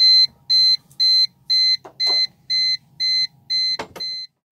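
Anchor drag alarm beeping, about two high-pitched beeps a second, with a couple of knocks; the beeping stops near the end. It signals that the anchored yacht has moved beyond the alarm's set 50-metre range, here in a strong gust of wind.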